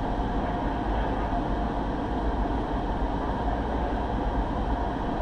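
Steady low rumble and hiss inside a stationary vehicle's cabin, with the engine idling.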